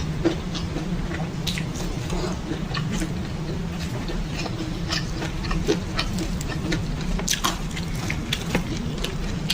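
Close-miked chewing: irregular wet smacks and mouth clicks of someone eating, over a steady low hum.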